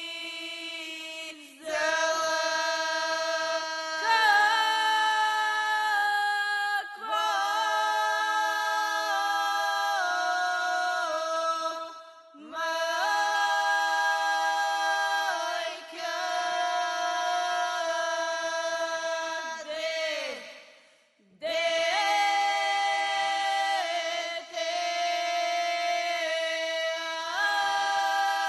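A group of female voices singing a Bulgarian folk song unaccompanied, one low note held steady as a drone under a moving melody. It comes in long phrases with short breaks for breath.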